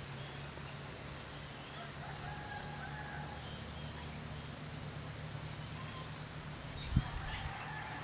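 Faint bird calls, a drawn-out call about two seconds in and a few short chirps, over a steady low hum, with a single thump about seven seconds in.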